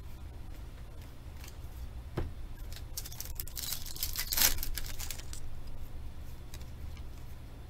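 Football trading cards being handled and slid past one another by hand, with a papery swishing between about three and five seconds in. A single light knock comes about two seconds in, over a steady low hum.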